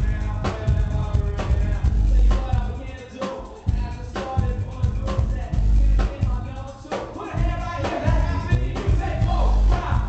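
Live hip-hop song played loud through a club PA: a heavy bass-and-drum beat with a rapper's vocals on microphone over it.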